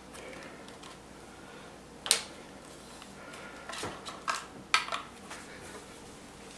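Sharp clicks and light knocks of small plastic parts and wire connectors being handled inside an opened DJI Phantom 2 quadcopter: one loud click about two seconds in, then a quick run of clicks a little before the end.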